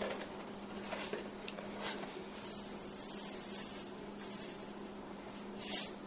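Quiet kitchen with a steady low hum and a few light handling clicks; near the end, a short hiss of salt pouring from a canister into a cupped hand.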